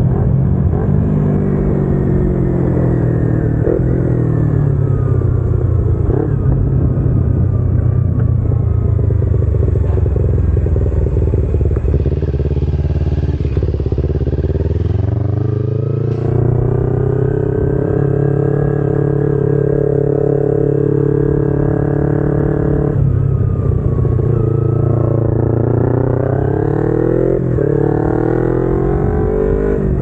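Kawasaki Ninja 250R's parallel-twin engine under way, its note sinking slowly over the first ten seconds or so as the bike slows. The note climbs again about halfway through and holds steady, then drops suddenly and climbs once more near the end.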